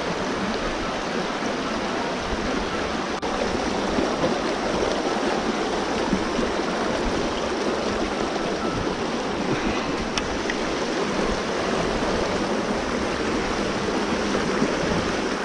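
Shallow, rocky stream rushing steadily over stones in a fast riffle around the wader's legs.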